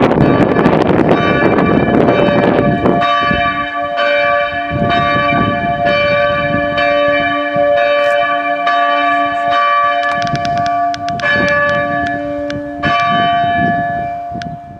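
Church bells ringing the noon peal, strokes overlapping with long ringing hum. The strokes thin out and the sound fades away near the end as the ringing stops.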